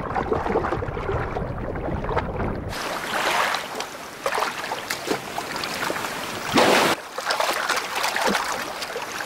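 Sea water sounds: a low underwater rush for the first couple of seconds, then splashing, rushing water and wind, as heard from a boat on the open sea, with a short louder rush about two-thirds of the way in.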